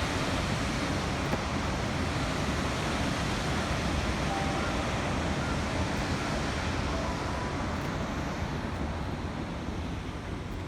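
Steady rushing noise of water pouring through a dam, a dense even roar that eases off slightly near the end.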